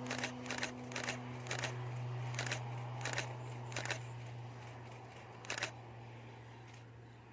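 A camera shutter clicking repeatedly, several times a second for about four seconds and once more near the end, over the steady drone of a Beechcraft King Air 90's twin turboprop engines fading as it departs.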